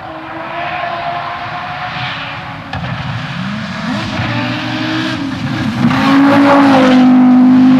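Audi Quattro Group B rally car's turbocharged five-cylinder engine revving up and down at speed, getting louder and holding high revs over the last couple of seconds.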